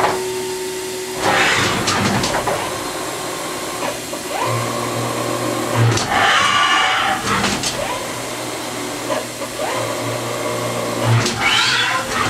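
Haas HS-1RP horizontal machining center running with a tap in its spindle: whines rising in pitch about four and a half and eight and a half seconds in, a low hum, and three short bursts of hiss about one, six and eleven seconds in.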